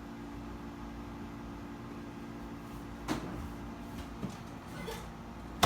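Steady low electrical hum in a small room, with a few short faint sounds past the middle and one sharp click near the end.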